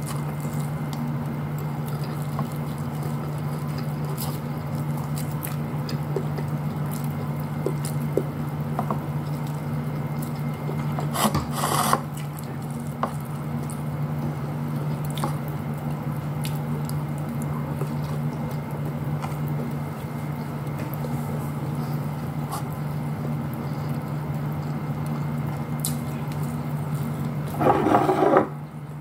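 A person eating rice and fried fish with bare fingers: chewing, food handled on a plate, and scattered small clicks, over a steady low hum. Two short, louder noisy bursts come about 11 seconds in and again near the end.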